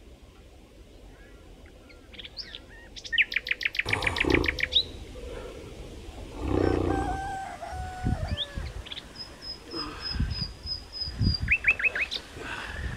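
Small birds chirping: a fast trill of rapid notes a few seconds in, scattered short whistled calls, a run of high repeated notes in the middle and a quick burst of four notes near the end. A few low thumps and rustles sound beneath the birdsong.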